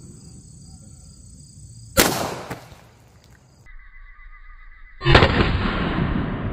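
Two pistol shots. The first comes about two seconds in, with a fainter crack half a second after it. The second is a .40 S&W pistol shot about five seconds in that echoes away for over a second.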